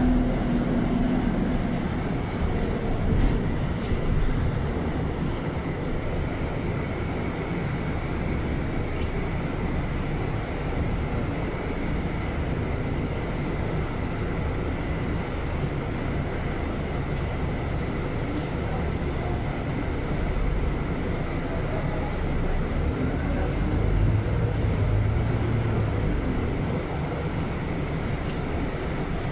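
Cabin sound of a Scania N280UB compressed-natural-gas city bus under way: the engine running with steady road noise and a thin steady high whine, swelling slightly a few seconds before the end.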